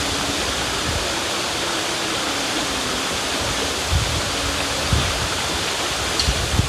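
River water rushing steadily, with a couple of brief low gusts of wind on the microphone about four and five seconds in.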